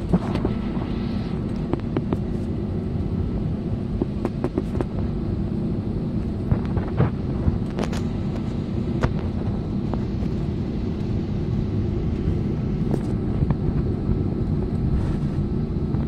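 Jet airliner cabin noise while taxiing after landing: a steady engine hum over a low rumble, with occasional short knocks.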